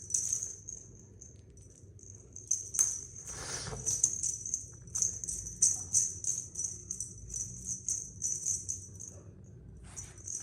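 A small jingle bell jingling in quick, irregular shakes, at its busiest from about two and a half seconds in until it stops near the end.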